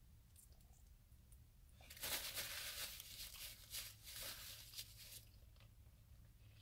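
Brown paper napkin rustling and crinkling as it is rubbed over the mouth and hands, starting about two seconds in and lasting about three seconds.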